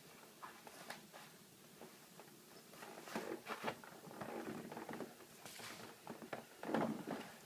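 Irregular rustling, scuffing and light knocks of sneakers being handled and pulled on, louder in clusters.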